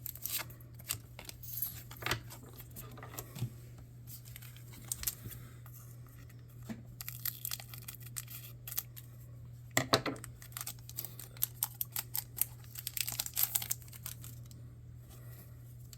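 Trading cards and their foil packs being handled: a run of light rustles, flicks and soft clicks over a low steady hum, with a louder scrape about ten seconds in.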